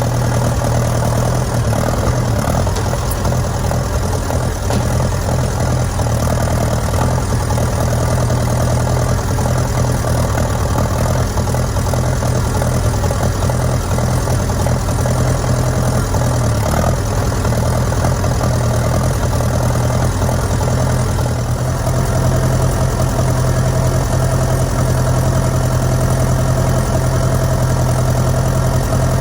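An engine running steadily at a constant speed, with a deep, even hum and a slight change in its note about 21 seconds in.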